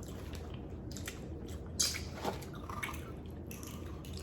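Wet eating sounds from a seafood boil: scattered squishes, smacks and small clicks, with one sharper, louder click a little under two seconds in.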